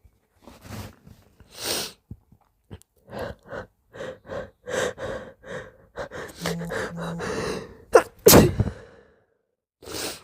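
A person's hitching, catching breaths in quick short gasps, building for several seconds, then a loud, moist sneeze about eight seconds in.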